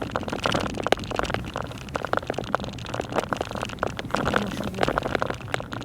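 Rapid, irregular ticking of many small hard grains, sleet or snow pellets, striking the moving car, over the low rumble of driving.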